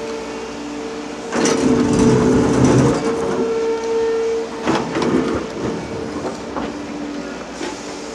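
Liebherr R 930 crawler excavator working: its engine runs with a steady whine, a loud rumbling clatter comes about a second and a half in and lasts over a second, and a few sharp metallic knocks follow.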